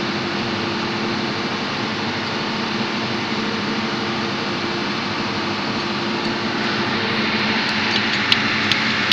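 Steady drone of running engine-room machinery, with a few steady tones in it. A couple of sharp metallic clicks come near the end.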